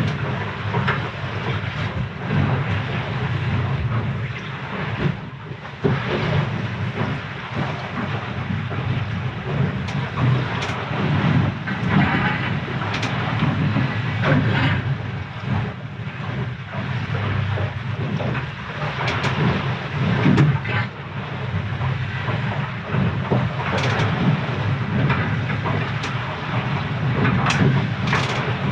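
Steady rushing of seawater along the hull, heard from inside the windward bow cabin of a Leopard 45 sailing catamaran in short, choppy seas, with occasional sharp knocks as the bow meets the waves.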